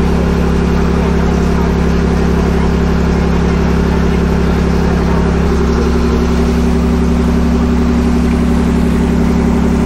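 Passenger ferry's engine running with a loud, steady drone as the boat gets under way, its tone shifting slightly about halfway through.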